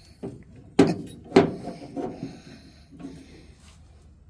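Two sharp knocks about half a second apart, a second or so in, followed by lighter clattering and rubbing as parts are handled.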